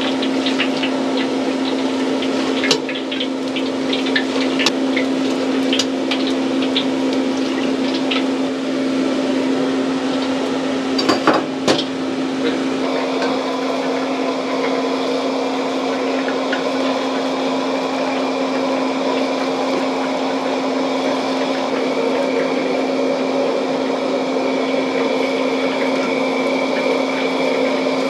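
Busy stall-kitchen sound over a constant hum: a metal ladle clinking against a wok of oil in scattered light knocks, with a brief louder clatter about eleven seconds in. From about thirteen seconds a different steady hum runs on with little else over it.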